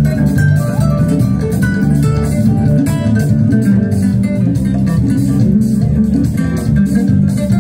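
Live band music over a stage sound system: a loud bass guitar line and guitar, with percussion keeping a steady beat.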